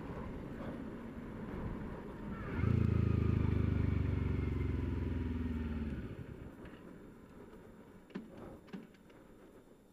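Wind rush on the microphone. About two and a half seconds in, a vehicle engine note cuts in loudly and holds steady for about three seconds, then fades away, leaving a few faint clicks.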